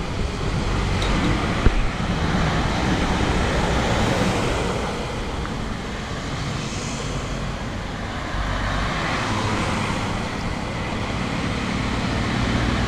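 Road traffic going by, with wind noise on the microphone from riding along the road. A single sharp click stands out about a second and a half in.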